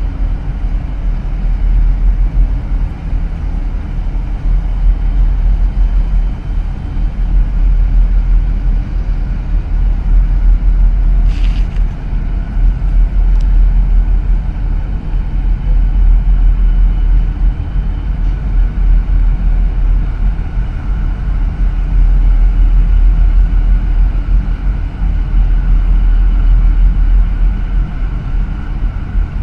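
Steady low rumble of boat engines on the water, heavily mixed with wind buffeting the microphone, its loudness rising and falling. A brief faint click about eleven seconds in.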